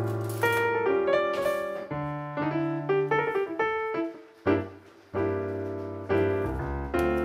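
Background piano music, single notes and chords struck and left to fade, with a brief lull about two-thirds of the way through.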